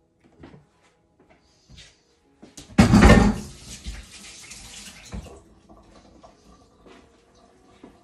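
Kitchen tap turned on and running for about two seconds, then shut off, with a few light clicks of handling before it.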